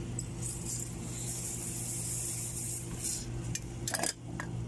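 Belnet aerosol flush, a 141b substitute, hissing as it is sprayed through a cone nozzle into a mini-fridge's cut refrigeration tubing to flush the lines. There is one long burst of about two and a half seconds, then two short spurts near the end.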